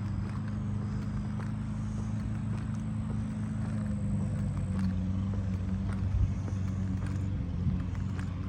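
A steady low mechanical hum, like an engine running, over a background of outdoor noise, with a few faint ticks.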